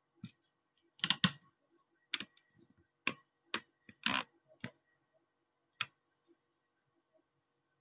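Handling noise on the phone that is recording: about eight irregular, sharp taps and knocks from fingers on the handset.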